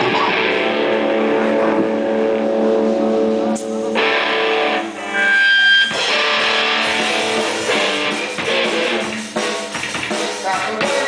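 Live band music led by guitar, with sustained ringing chords. Between about four and six seconds in the sound thins and a high held note stands out, before the full band comes back in.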